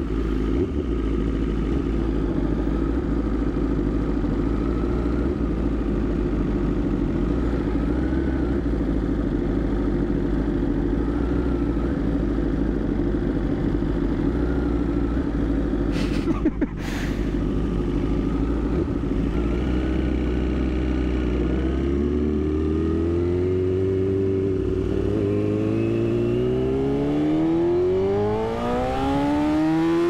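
BMW S1000RR's tuned inline-four engine idling steadily at a stop, with two sharp knocks about halfway through, then pulling away, its revs rising smoothly over the last several seconds.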